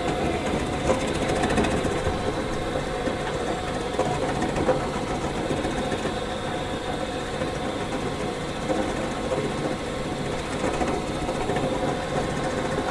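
Onion slicing machine running steadily, its motor humming under a dense rapid clatter as it slices onions.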